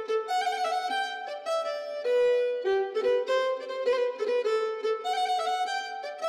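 Violin music: a quick melody of short notes in a high register, with no bass underneath.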